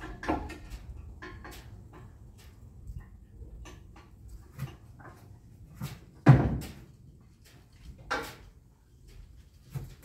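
B&W Companion fifth-wheel hitch, a heavy steel assembly, being shifted and tilted about in a pickup bed. Its parts clank and knock against each other and the bed, with scattered knocks. The loudest comes about six seconds in, and another follows around eight seconds.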